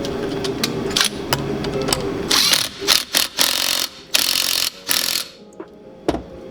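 Tool work tightening the flywheel nut on a Kawasaki KX250F engine: a steady mechanical hum with a few metal clicks, then four quick rasping bursts of ratcheting about half a second each, before it goes quiet.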